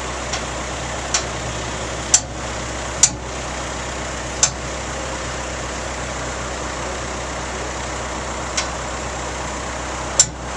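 Backhoe's diesel engine running steadily as it is worked. A few short sharp knocks cut through it, the loudest about two, three and ten seconds in.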